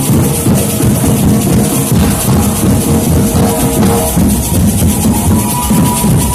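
Batucada drum band playing homemade cardboard surdos and tambourins in a steady, driving rhythm, the deep surdo beats loudest.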